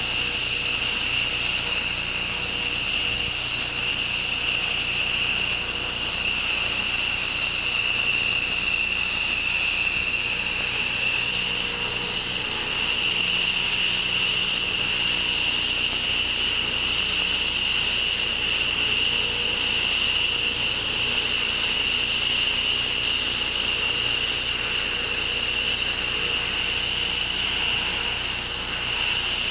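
F-15 jet engines idling on the ramp: a steady, high-pitched turbine whine over a dull rush. The whine dips slightly in pitch about eleven seconds in and holds.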